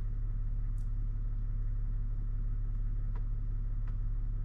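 3.0 Duramax inline-six turbodiesel idling steadily, heard from inside the cab as a low, even hum, with a few faint clicks.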